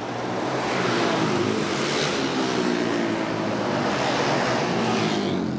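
Racing motorcycles on a dirt flat track running at speed as they pass, a loud engine rasp whose pitch drifts slowly. It builds about a second in and eases off near the end.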